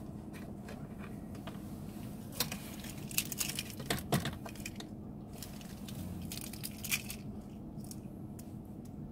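Scattered clicks, taps and rattles of hands working at the plastic glovebox and trim under a Hyundai Galloper's dashboard to reach the cabin air filter, with keys jingling now and then, over a faint steady low hum.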